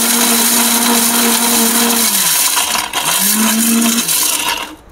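Orpat mixer grinder's motor running at full speed, grinding dried turmeric in its steel jar. About two seconds in it is switched off and winds down, then restarted a second later. It is switched off again near the end: the turmeric is ground fine.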